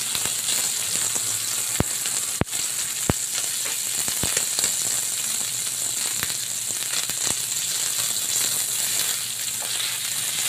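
Cubes of wagyu beef frying in their rendered fat on an electric griddle: a steady, hissing sizzle with a few sharp clicks now and then.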